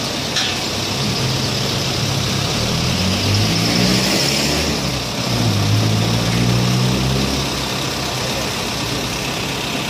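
Diesel engine of a truck-mounted crane running steadily and speeding up twice, about three seconds in and again about five and a half seconds in, as it drives the hydraulic boom holding a heavy sign.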